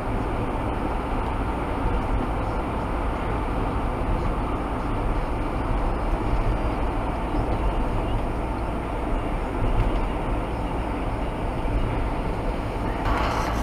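Steady road noise heard inside a moving taxi at dual-carriageway speed: a continuous low rumble of tyres and engine.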